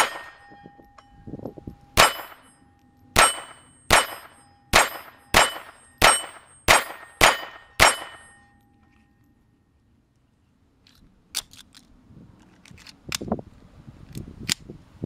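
Walther PPK/S .22 LR pistol fired ten times at a steel plate: two spaced shots, then eight in quick succession about one and a half a second, each followed by the ring of the struck steel. After a pause, a few lighter clicks as the pistol is handled.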